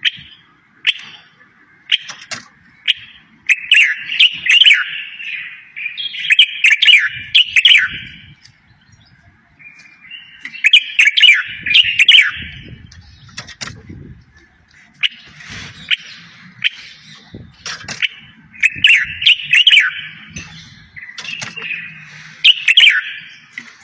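A songbird singing in fast, twittering phrases of two to four seconds each, about four times, with short pauses between them and scattered sharp clicks.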